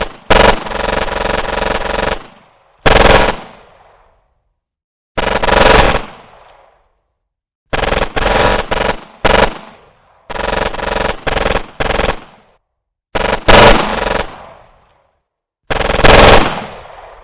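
Automatic gunfire in about seven short bursts of rapid shots with pauses between them. Each burst ends in a long echoing tail from an enclosed room.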